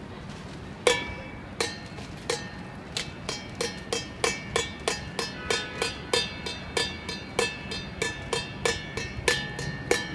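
A rhythmic beat of sharp struck hits, each with a brief ringing tone, about two to three a second, beginning about a second in.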